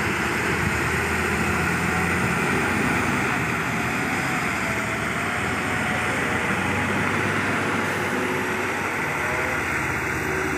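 Heavy diesel trucks driving slowly past on a climb, their engines steady and working hard under load.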